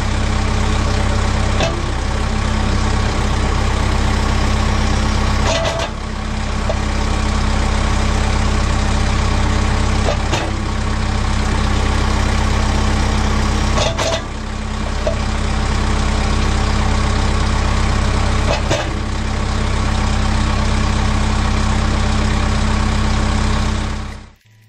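Kubota M6060 tractor's diesel engine running steadily while the grapple's repaired hydraulic cylinder is worked, closing the grapple jaw. Short dips in the engine note, each with a click, come about every four seconds.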